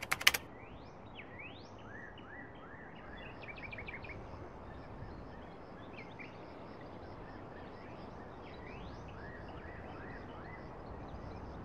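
Birds calling with quick rising chirps and short repeated whistled notes over the steady rushing of river water from a small cascade.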